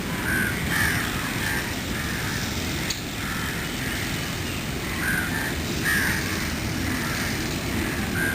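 Crows cawing, several short calls coming in scattered bursts, over a steady low background rumble.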